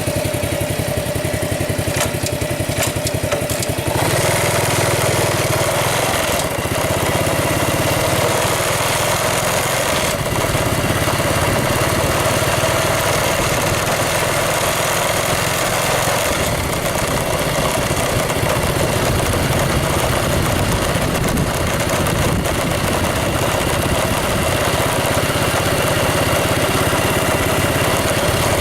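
A motor vehicle's engine running steadily close by, getting louder about four seconds in and then holding.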